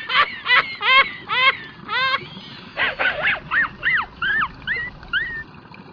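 Two runs of short, high-pitched animal-like calls, each rising and falling in pitch, about three to four a second; the second run grows fainter and its calls shorter toward the end.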